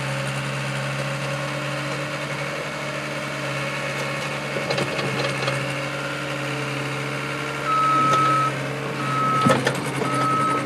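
Skid steer engine running steadily, with a few sharp knocks; a little past halfway its backup alarm starts, a single high-pitched beep repeating about once a second as the machine reverses.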